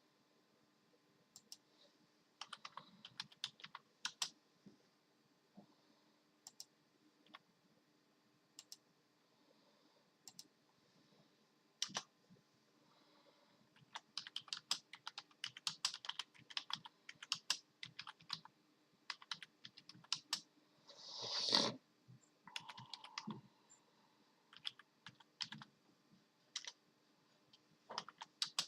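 Computer keyboard keys being pressed in irregular clusters of clicks with pauses between. About two-thirds of the way through comes one short, louder rushing noise.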